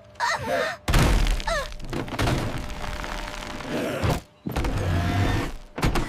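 Cartoon sound effects of a brick wall cracking and crumbling: heavy thunks and breaking noise that start suddenly about a second in and break off briefly a little past four seconds. Short gliding vocal exclamations come in near the start and again soon after.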